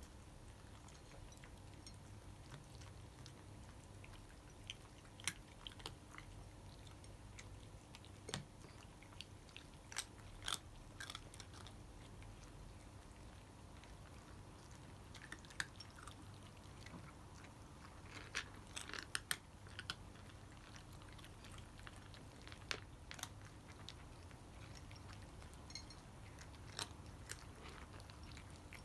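Cats crunching dry kibble: faint, irregular crisp clicks, with quicker clusters twice, over a low steady hum.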